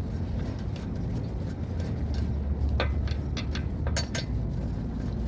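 Metal tool parts clinking and clicking a few times as they are handled during a roadside tire change, with a short bright ring among the clinks, over a steady low rumble.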